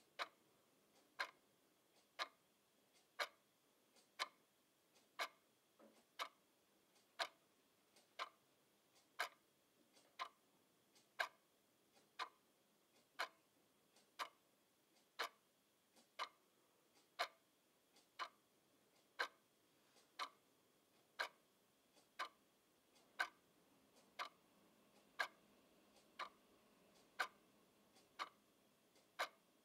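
Quartz twin-bell alarm clock ticking, one sharp tick a second, steady and even, with near silence between the ticks.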